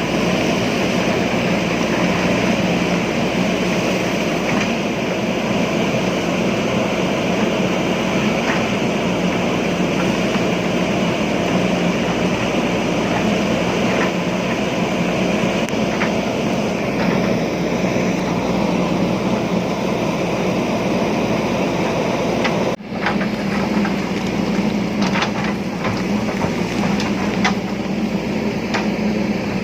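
JCB backhoe loader's diesel engine running steadily under load while it digs into a stony hillside. The sound dips abruptly for a moment about two-thirds through, and several sharp clicks and knocks, stones against the bucket, follow near the end.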